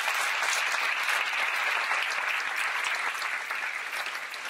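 Audience applauding steadily, a dense patter of many hands clapping that eases off slightly near the end.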